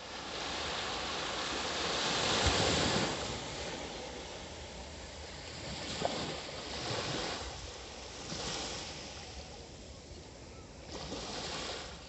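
Small waves breaking and washing up a sandy beach, the surf swelling and fading in several surges, loudest about two to three seconds in.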